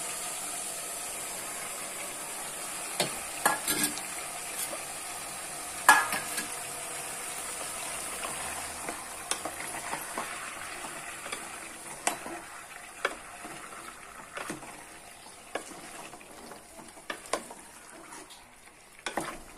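Masala-coated chicken frying with a steady sizzle in a metal pot, while a spatula stirs it, scraping and knocking against the pot now and then. The sizzle gets gradually quieter over the second half as chopped tomatoes, onions and green chillies are stirred in.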